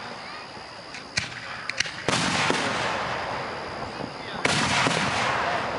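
Fireworks going off: a few sharp bangs, then two sudden louder bursts, about two seconds in and again near the end, each ringing on for a couple of seconds.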